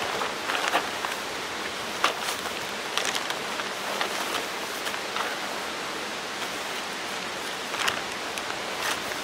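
Crinkling rustle of a Grabber All Weather Blanket, a tarp-like sheet with a foil face, being handled and unfolded: a handful of short crackles over a steady background hiss.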